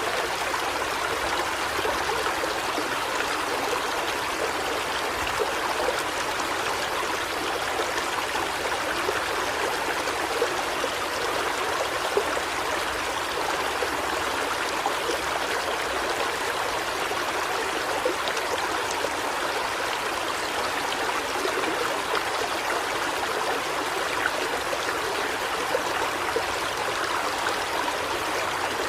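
River water flowing steadily over rocks: an even, unbroken rush and babble of a stream.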